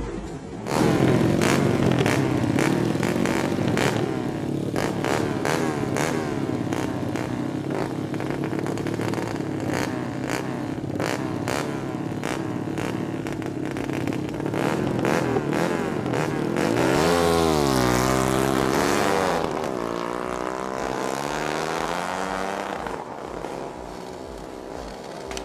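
Drag-racing motorcycle engine revving hard at the start line with a rapid crackle, starting about a second in. Near the end it launches, its pitch climbing and dropping with the gear changes, then fading as the bike pulls away.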